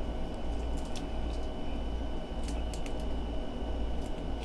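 Faint, scattered crackles and clicks of a boiled shrimp's shell being peeled by hand, over a steady low hum.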